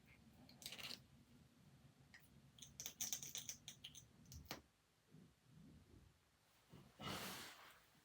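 Faint clicks and rattles of small plastic lip-product tubes and caps being picked through and handled, with a quick run of sharp clicks about three seconds in and a soft rustle near the end.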